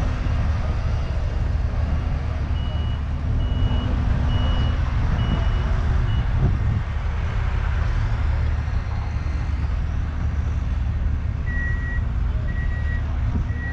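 Vehicle reversing alarms beeping over a steady low engine rumble. A higher-pitched beeper sounds about twice a second for a few seconds, starting a couple of seconds in. A lower-pitched one, about one beep a second, starts near the end.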